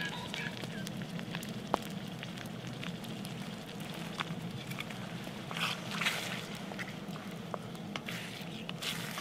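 Wood fire crackling in a wood-gas camp stove, with many scattered sharp pops, one louder pop early on, and a few short hissing bursts.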